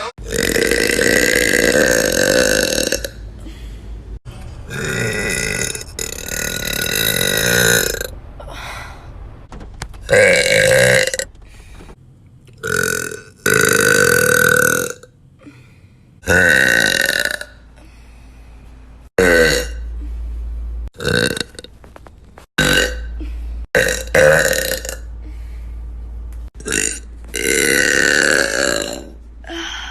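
A string of about a dozen loud, drawn-out burps from young women, one after another, each lasting from half a second to a few seconds, with abrupt cuts between them.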